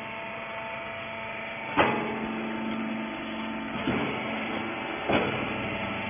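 TCM used-clothes rag baler running, its motor and hydraulic unit giving a steady hum with a few constant tones. Three sharp clunks from the machine cut through it, the loudest about two seconds in, then two lighter ones about two and three seconds later.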